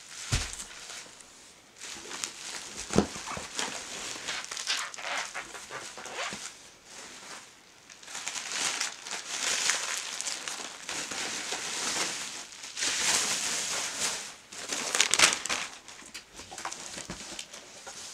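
Bubble wrap and plastic packaging crinkling and rustling in irregular bursts as it is handled, with a few light knocks.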